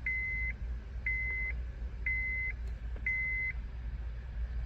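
Four evenly spaced electronic beeps, about one a second, each a steady high tone about half a second long, stopping about three and a half seconds in, over a low steady hum.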